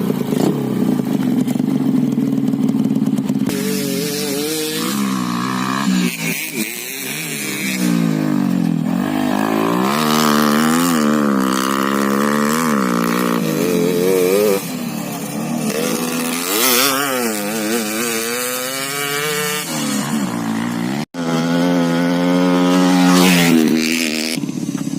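Honda Win motorcycle with a 130cc Yamaha engine running, its engine note climbing and dropping again and again as it is revved.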